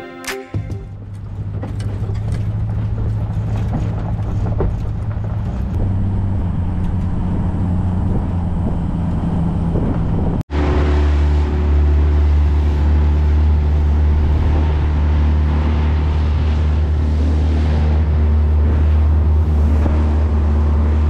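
Steady road and wind noise of an aluminium tinny being towed on its trailer along a road. About ten seconds in it cuts to the boat's outboard motor running steadily as it travels across open water, a louder, deeper drone.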